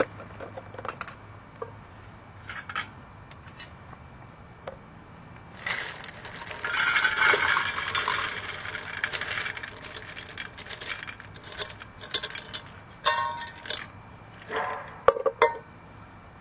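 Small pieces of wood fuel poured into a metal can wood gas stove, rattling and clinking against the metal. The rattling is densest and loudest about six seconds in, and a few separate sharp clinks follow near the end.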